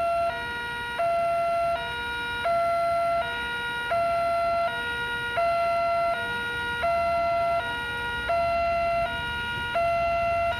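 Railway level-crossing warning alarm: an electronic two-tone signal alternating between a higher and a lower tone about every three-quarters of a second, sounding because a train is approaching.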